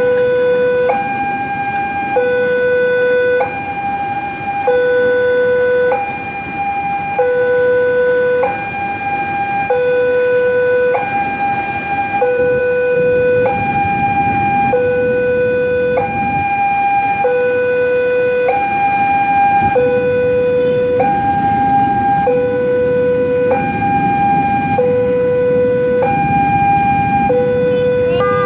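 Railway level-crossing warning alarm sounding a continuous two-tone signal, a low and a higher tone alternating about every second, over the rumble of a train passing across the crossing.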